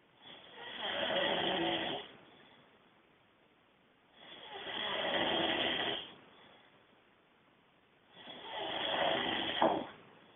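A sleeping man snoring: three long snores about four seconds apart, each lasting about two seconds, the last ending in a short sharp pop.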